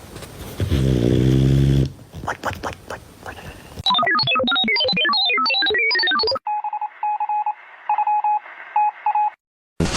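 A dog's snore about a second in, then a fast run of electronic beeping notes jumping in pitch, followed by a string of short beeps at one steady pitch, like phone dialing tones.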